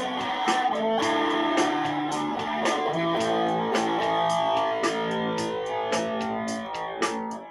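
Electric guitar playing sustained melodic notes over a steady beat.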